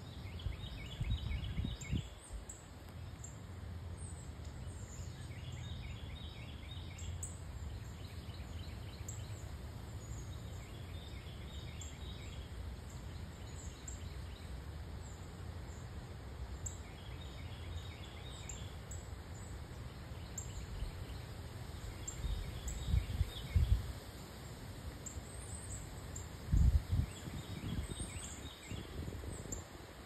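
A songbird repeating a short burst of quick notes about every four to five seconds, over faint high chirping and a steady low rumble. A few dull thumps stand out about two-thirds of the way through.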